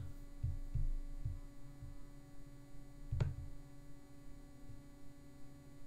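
Steady low electrical hum, with a few soft low bumps in the first two seconds and one sharp click a little after three seconds in.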